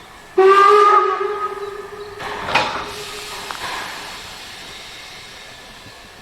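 Harzer Schmalspurbahnen Class 99 narrow-gauge steam locomotive sounding its whistle once, a steady chord-like blast of about three seconds, loudest as it starts. A sharp burst of steam comes midway, and steam hiss then trails off.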